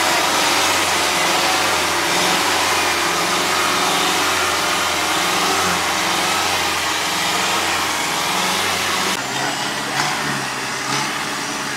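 Off-road vehicle engine running, its pitch wavering slightly, under a heavy rush of noise; the sound changes abruptly about nine seconds in.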